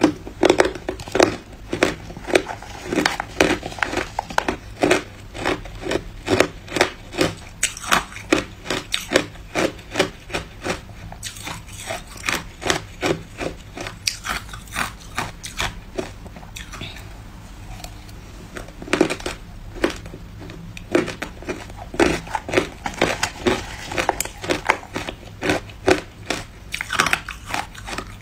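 Hard ice being chewed, a steady run of sharp crunches about two to three a second. They thin out for a few seconds past the middle, then pick up again.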